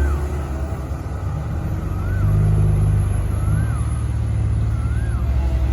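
Diesel engine of a Komatsu PC130 hydraulic excavator running under working load, its pitch and loudness shifting and swelling about two seconds in as the machine digs.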